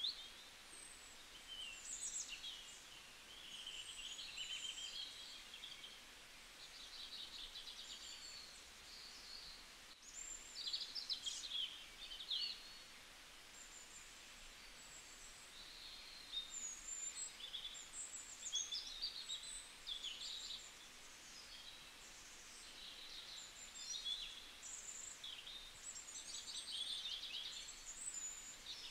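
Faint birdsong ambience: several birds chirping and trilling on and off over a soft steady hiss.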